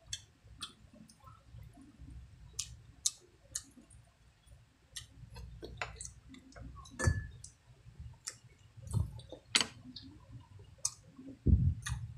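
Close-up eating sounds: irregular wet mouth clicks and lip smacks of people chewing squid adobo and rice, with a few duller low knocks in the second half.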